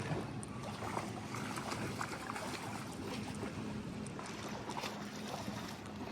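Wind and water noise with scattered small clicks and splashes, over a faint steady low hum.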